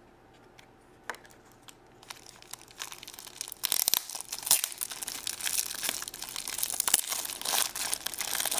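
Plastic packaging crinkling and rustling as small toy pieces are handled. It starts with a few light clicks, then becomes dense, steady crinkling from about two seconds in.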